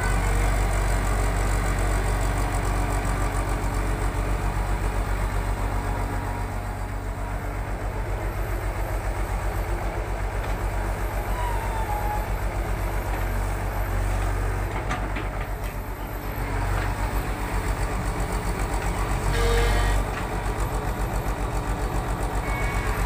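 Diesel engine of a Tata Hitachi crawler excavator running steadily with an even, pulsing low rumble as it digs and loads sand.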